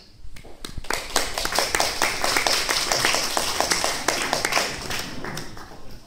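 Audience applauding: a crowd of hand claps starting about half a second in and dying away near the end.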